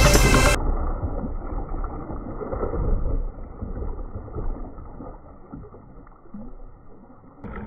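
Shallow floodwater sloshing and splashing around an overturned radio-controlled crawler truck. The sound is dull and muffled and fades gradually. A burst of electronic music cuts off about half a second in.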